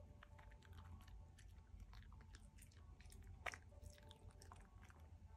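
Faint, irregular crunches and clicks of a small dog chewing kibble it noses out of a fleece snuffle mat, the sharpest crunch about three and a half seconds in.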